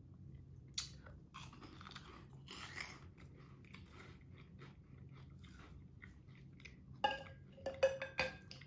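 Chewing and crunching on crunchy cheese puff balls, with sharper crunches about a second in and again near the end.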